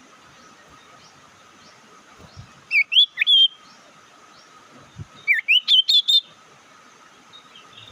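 Sirtu bird calling: two bursts of quick, sweeping whistled notes, a short one about three seconds in and a longer run a couple of seconds later, the kind of call used to lure wild sirtu.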